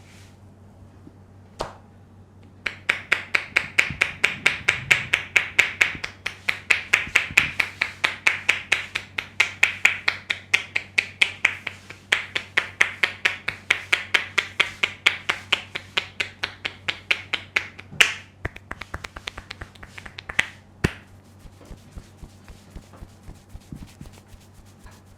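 A barber's hands working a client's head in an Indian head massage, making fast rhythmic snapping cracks, several a second. About three seconds in the run starts, and after about eighteen seconds it breaks into sparser, irregular snaps with a couple of louder cracks.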